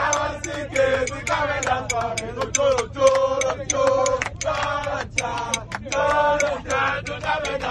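A group of people singing together, with rhythmic hand clapping keeping the beat.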